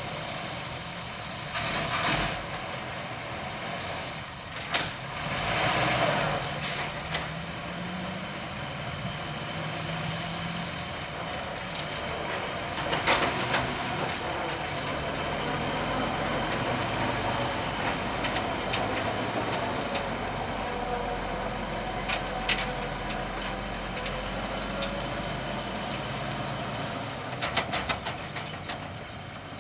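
1947 Dodge WDX Power Wagon's flathead straight-six running steadily at low speed as the truck moves off, the engine note rising briefly. A few short clunks and knocks cut in now and then.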